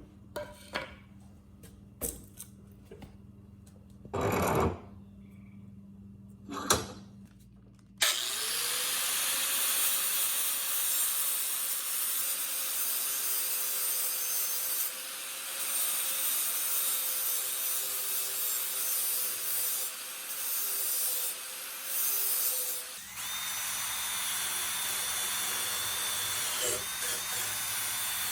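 A few clicks and two short loud bursts, then a power tool starts up with a rising whine and runs steadily for about fifteen seconds. It then changes to a higher-pitched steady running sound that continues to the end.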